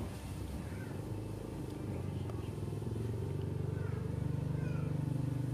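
Kitten purring while being stroked: a low, steady purr that grows louder about three seconds in.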